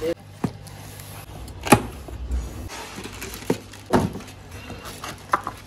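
A few separate clicks and knocks from a new laptop and its packaging being handled during unboxing, the loudest nearly two seconds in, over a low steady hum.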